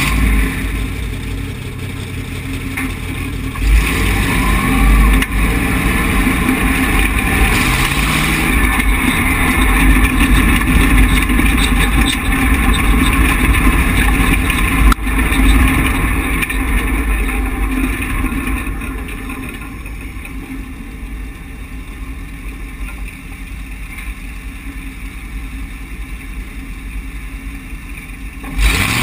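Tough truck's engine running and revving as it drives over a rough dirt track, heard on board close to the front suspension, with heavy low rumble and a couple of sharp thumps from the chassis. The engine climbs in pitch around four and again around eight seconds in, then runs quieter for the last ten seconds or so.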